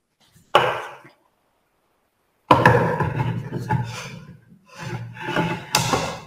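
Wooden boards being set down and shifted on a wooden workbench top. A sharp knock comes about half a second in, then a louder clatter about two and a half seconds in, followed by rubbing and scraping of wood on wood and another knock near the end.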